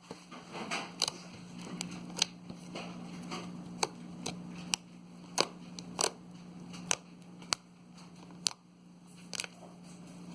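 Slime being squeezed and worked by hand, giving sharp wet clicks and pops at irregular intervals, about one a second, with a faint squish between them. A steady low hum runs underneath.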